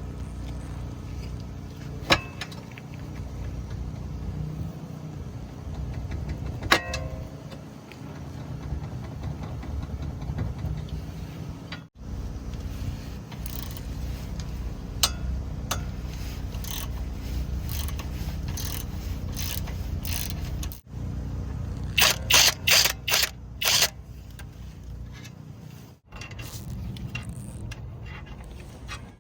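Steady low rumble of a Subaru Outback driving, with sharp clunks from the suspension over small bumps: single knocks early on, and a quick run of several loud clunks about three quarters of the way through. A clunk like this over small bumps is typical of a worn lower ball joint.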